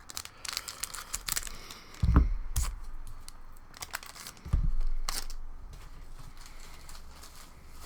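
A foil booster pack of trading cards being torn open and its wrapper crinkled, with the cards handled. Two dull knocks come about 2 and 4.5 seconds in.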